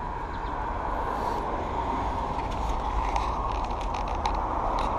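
Steady outdoor street noise of road traffic, with a few faint clicks in the second half.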